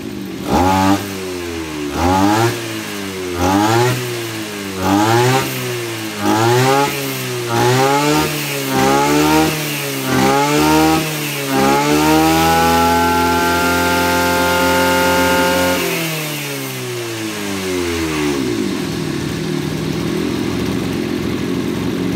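Maruyama KC26 brush cutter's 26cc two-stroke engine revved in about nine quick blips, roughly one a second, then held at full throttle for about four seconds and let fall back to a steady idle.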